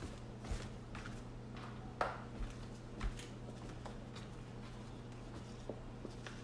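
A few faint knocks and clicks of kitchen handling in the first three seconds, over a steady low hum.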